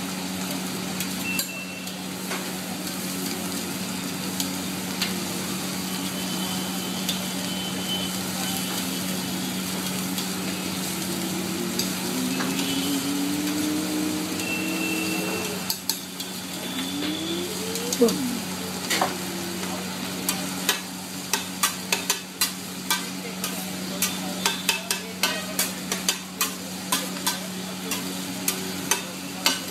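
Food sizzling in butter on a large flat griddle, under a steady low hum. From about two-thirds of the way in, metal spatulas chop and scrape against the griddle in quick repeated clacks.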